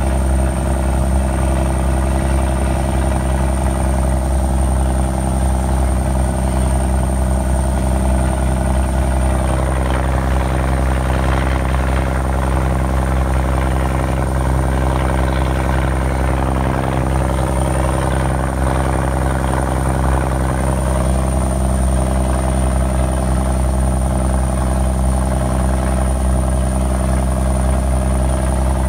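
M35A2 deuce-and-a-half's multifuel diesel engine running steadily as the truck pushes through deep flood water, with the rush and splash of its bow wave. The water noise grows louder for about ten seconds in the middle.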